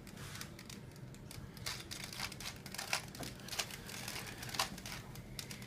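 Rubik's Cube being twisted by hand: irregular, quick plastic clicks and clacks as the layers turn.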